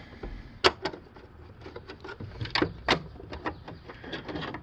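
Scattered sharp clicks and light knocks of hard plastic and small screws being handled as the body of a Polaris Quattro P40 pool cleaner is fitted and screwed back together, the loudest click a little under a second in and two more close together around the middle.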